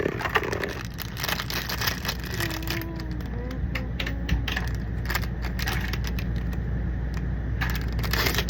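Plastic packaging crinkling and crackling in irregular bursts as a toy blind bag is handled and torn open, over a steady low hum.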